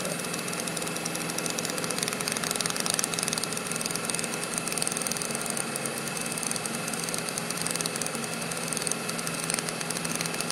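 TIP TIG hot-wire welding running steadily: a continuous buzzing hiss from the arc, with the wire feed humming along under it.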